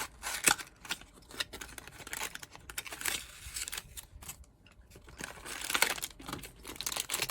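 Packaging of a Beyblade random booster being opened by hand: irregular crinkling and tearing with sharp clicks, in bursts, the loudest about half a second in and near the end.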